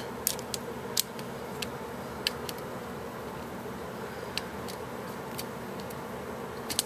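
Screwdriver turning in the small set screw of a metal spring tension curtain rod: scattered light metal clicks and ticks at irregular intervals, over a steady background hum. The screw is not tightening.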